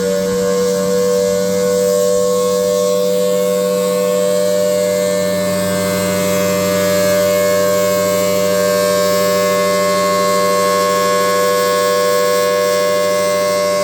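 Federal Signal Thunderbolt 1000T blower-driven outdoor warning siren sounding at full power: a loud, steady wail whose pitch finishes climbing in the first couple of seconds and then holds.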